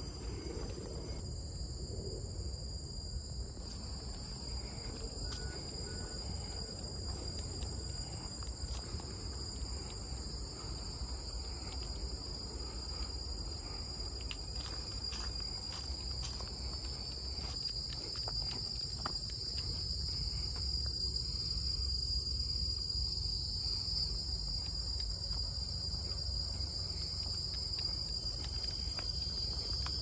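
A chorus of many insects buzzing steadily on several high pitches, growing a little louder in the second half, over a low rumble.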